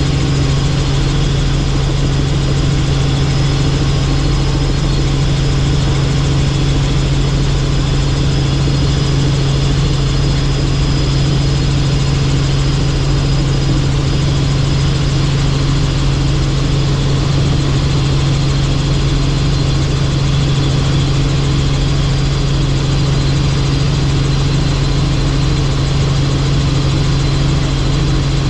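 Helicopter in flight: a loud, steady drone from engine and rotors with a strong low hum that never changes.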